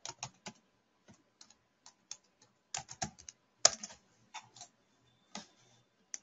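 Typing on a computer keyboard: irregular keystroke clicks in short runs, with pauses between them.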